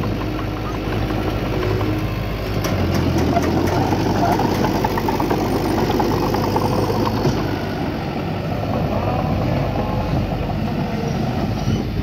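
Heavy earthmoving machinery's diesel engine running, its pitch and loudness shifting as it works.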